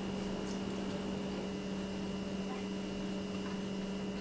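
Steady low electrical hum with a higher faint whine over a hiss of room tone, with a few faint small ticks.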